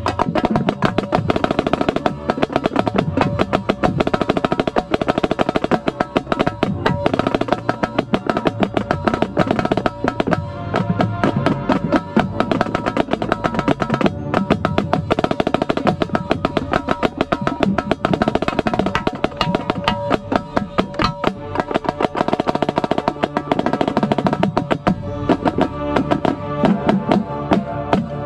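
Marching snare drum played right under the microphone: fast, dense runs of stick strokes and rolls, with the marching band's brass playing sustained chords underneath.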